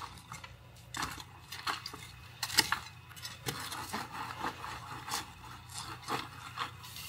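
Sand being dug out by hand around a stuck pickup's rear tyre: irregular scratchy scrapes and scoops, a few a second.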